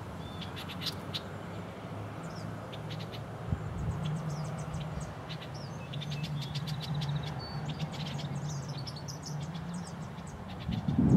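Small birds chirping and twittering repeatedly over a steady low hum, with a louder rumble rising near the end.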